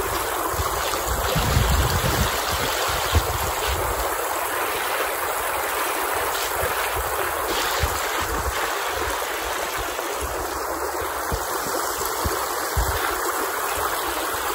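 Shallow mountain stream flowing over a stony bed: a steady rushing of water, with occasional low rumbles that are strongest in the first few seconds.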